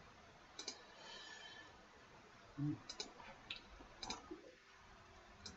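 Computer mouse clicking a few times, short sharp clicks spaced a second or so apart.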